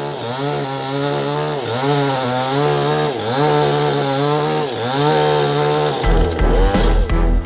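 A sawmill saw's engine runs steadily, its pitch sagging and recovering every second or so as it takes the load of the cut. Near the end, music with a deep thumping beat comes in.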